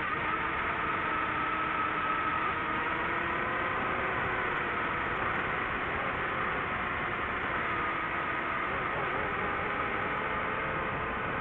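Drone motors and propellers whining under a steady rush of wind noise, picked up by the aircraft's own microphone; the motor pitch wavers slightly.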